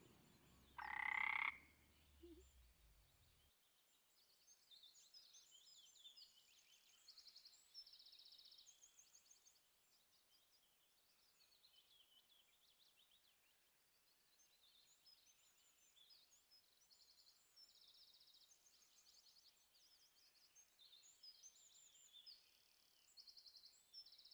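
Faint chorus of frogs calling: high, rapid trills that repeat over and over. There is one short, louder and lower sound about a second in.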